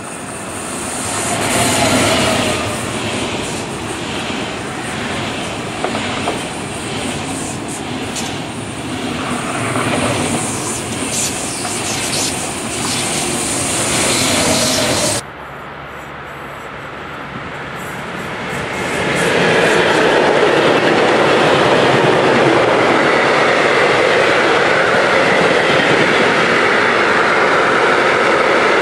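An ICE high-speed train passing at speed, its wheels clattering over the rail joints in a regular beat. After a sudden cut about halfway through, a freight train of open wagons rolls past, its wheel noise swelling into a steady, louder sound a few seconds later.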